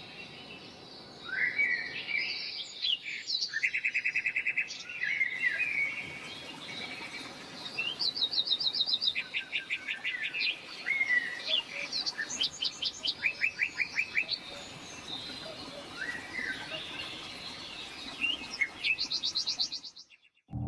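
Birds chirping and singing, a mix of short calls and rapid repeated trills, which cut off suddenly near the end.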